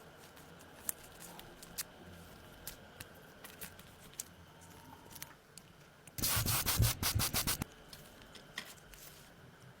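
Hand sanding: a loud burst of rapid back-and-forth rubbing strokes starts about six seconds in and lasts about a second and a half. Faint scattered ticks and light handling noises fill the rest.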